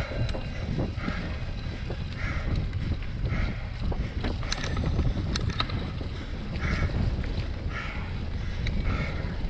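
Wind rumbling on the microphone as a cyclocross bike is ridden over a wet, muddy course, with scattered clicks and rattles. A short hiss repeats about once a second.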